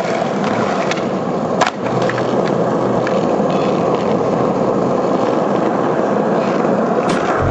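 Skateboard wheels rolling over rough pavement, a steady gritty rumble, with one sharp clack about two seconds in.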